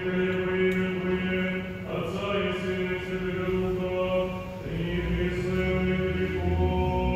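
Orthodox church chant sung slowly in long held notes that shift every second or two; a deep bass part comes in about two-thirds of the way through.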